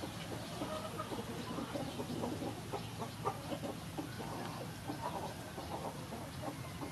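Chickens clucking: a loose scatter of short clucks over a steady low hum.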